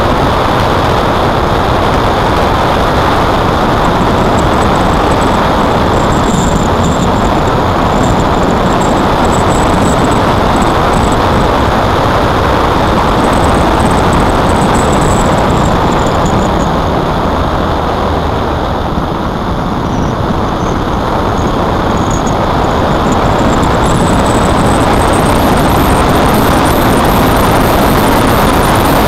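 Steady rush of wind over a motorcycle-mounted camera's microphone, with the motorcycle's engine and road noise beneath. It eases a little about two-thirds of the way through and builds again near the end.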